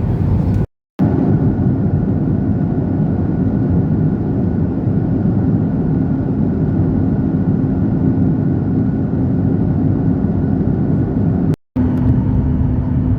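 Boeing 737 MAX 8 cabin noise: a loud, steady rumble from the engines and airflow with a steady hum running through it. It cuts out to silence briefly twice, about a second in and near the end.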